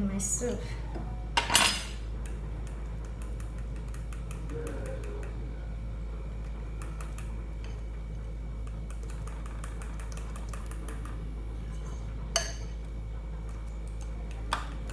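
Kitchen utensils clinking and clattering against dishes: one loud clatter about a second and a half in, two shorter sharp clinks near the end, and faint small taps between, over a steady low hum.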